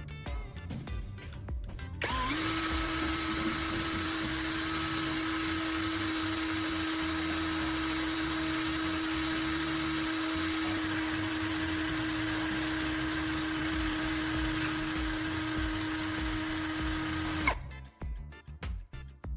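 A small power-tool motor runs at one steady speed for about fifteen seconds, with a steady hum and hiss. It starts suddenly about two seconds in and cuts off suddenly near the end. Background music plays underneath.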